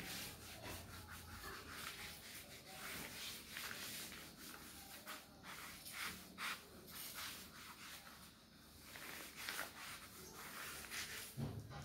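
A cloth duster rubbing across a chalkboard in repeated faint, scratchy strokes, wiping off chalk writing, with a short lull past the middle.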